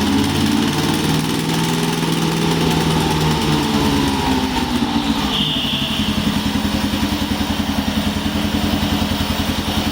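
The gasoline engine of a VODEXS VDTK-850 remote-control slope mower running as the throttle is adjusted. Its speed rises and falls over the first few seconds, then settles into a steady, evenly pulsing run.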